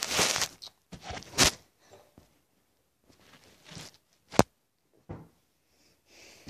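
Handling noises close to the microphone: rustling and knocking as objects are moved about, with one sharp click about four and a half seconds in.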